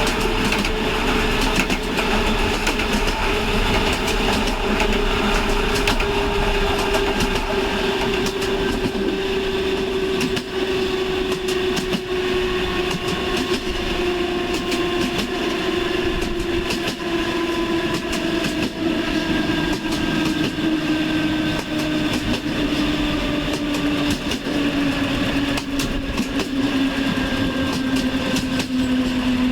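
Train running on the rails, with frequent short rail clicks and a whine that slowly falls in pitch through the whole stretch.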